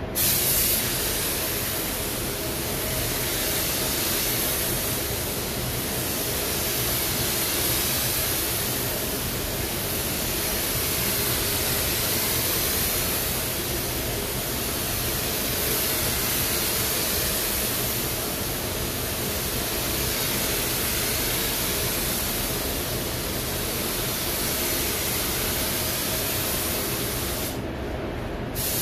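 Compressed-air paint spray gun hissing steadily as the trigger is held and paint goes onto the car's panels. It cuts in at the start, stops for about a second near the end as the trigger is released, then resumes over a steady low hum.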